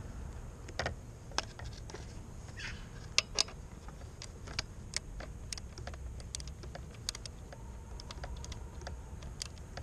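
Irregular light clicks and taps of a hand tool loosening a 10 mm bolt on the wiring-harness cover, with two sharper clicks a few seconds in.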